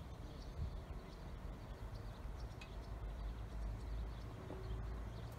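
Low rumble of a regional train approaching in the distance, growing slightly louder toward the end. Small birds chirp over it now and then.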